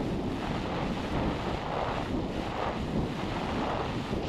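Steady rushing wind noise on a high-altitude amateur rocket's onboard camera microphone, swelling and fading unevenly.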